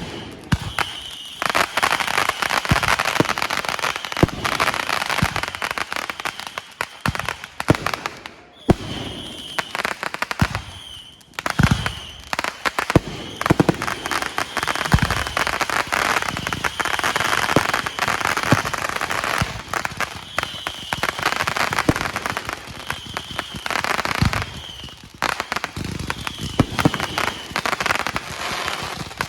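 Fireworks going off one after another: dense crackling and popping with repeated low booms, easing off briefly a few times.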